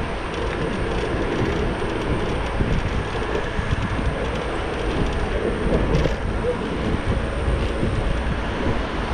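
Steady road and wind noise from riding a Xiaomi Mi Pro 2 electric scooter, mixed with the sound of car traffic passing alongside.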